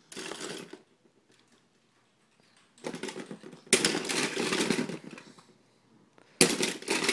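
Small toy cars clattering against each other and the plastic bin as a baby's hands rummage through them, in three bursts of rattling: briefly at the start, for a couple of seconds in the middle, and again near the end.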